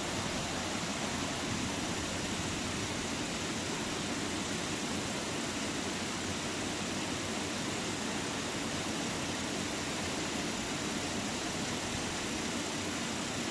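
A stream's steady rush of flowing water.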